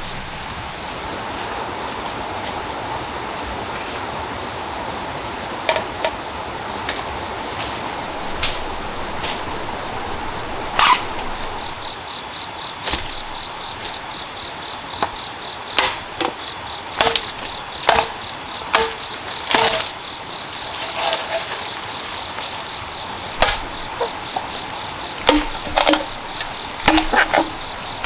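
Machete chopping green bamboo: sharp, irregular cracking strikes, some with a short hollow ring from the bamboo stem, coming more often in the second half, over a steady background hiss.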